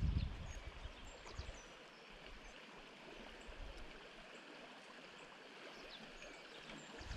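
River current flowing with a steady soft rush, and a few short, faint, high bird chirps over it. A low wind rumble on the microphone fades out in the first second or so and returns briefly near the end.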